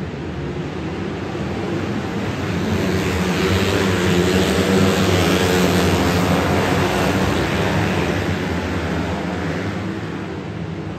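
A pack of small winged sprint-style race cars running on an indoor dirt oval, their engines swelling as the field passes about halfway through, then fading as they move away around the track. The sound echoes under the arena roof.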